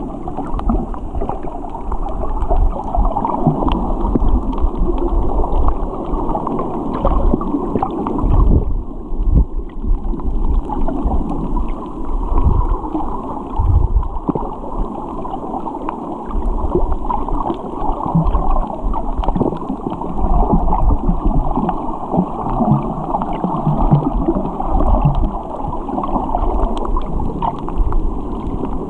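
Muffled underwater wash and low rumble of water moving around a submerged camera, with fine crackling throughout and a brief lull about nine seconds in.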